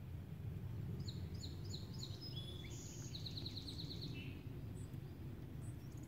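A songbird sings one song about a second in: a few quick down-slurred notes, then a fast even trill and a lower buzzy ending, with a few faint high chips later. Under it runs a steady low rumble of light breeze.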